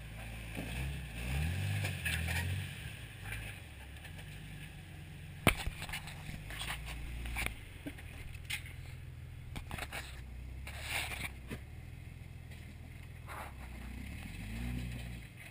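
Jeep Wrangler TJ engine running low and slow while rock crawling, rising briefly a couple of times, with scattered scrapes and knocks; the loudest is a single sharp knock about five and a half seconds in.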